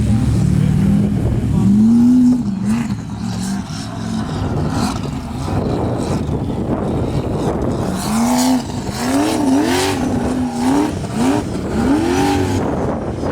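Formula offroad race buggy's engine revving hard in repeated short bursts, its pitch rising and falling several times, once early and then in a quick run of blips in the second half.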